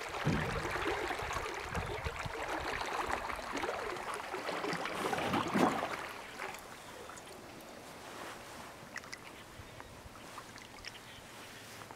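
Paddles dipping and swishing through calm water beside a small paddled boat, with splashing and trickling. About six seconds in the strokes stop and only faint drips are left.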